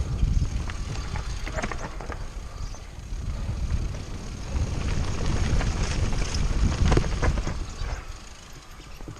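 Mountain bike descending a rough trail: wind buffeting the on-board microphone while the bike clatters over stones, easing off near the end.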